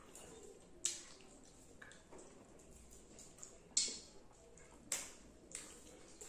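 Close-miked eating sounds: wet chewing and lip smacks while eating rice and fish curry, with a few sharp smacks about a second in, near four seconds and near five seconds.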